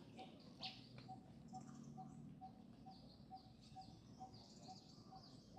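Faint, busy bird chirping: many short, high chirps falling in pitch, over a soft, regular pip about twice a second.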